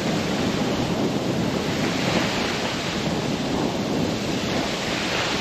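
Steady wind buffeting the microphone over the rush of water along a sailboat's hull, sailing upwind under sail at speed.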